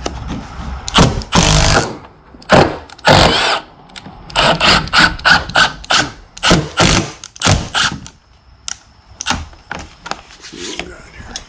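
Milwaukee Fuel cordless impact driver driving screws through a door jamb: two longer runs in the first few seconds, then a quick string of short trigger bursts as the screw is set, and a few fainter bursts near the end.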